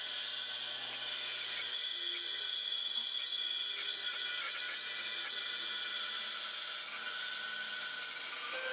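Bandsaw resawing a walnut board, the blade cutting with a steady even noise.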